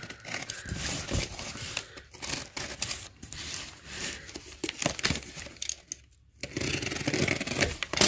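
A small cardboard box being torn open and handled: tape and cardboard ripping and scraping, with rustling of the packaging inside. There is a brief pause about six seconds in.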